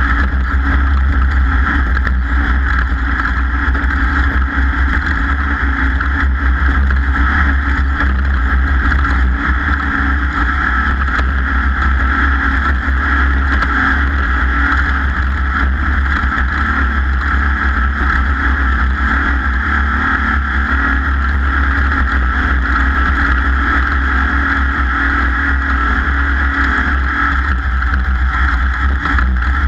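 Off-road race vehicle running at a steady pace under power, heard from on board: engine noise mixed with a constant rush of wind and terrain noise, without clear gear changes or revving.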